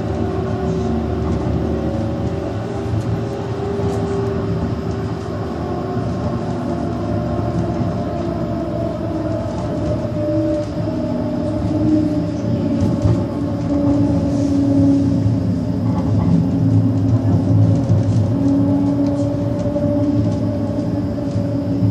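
Inside a tram in motion: steady running rumble of the motors and wheels on the rails, with humming tones that drift slowly up and down in pitch. It grows a little louder about halfway through.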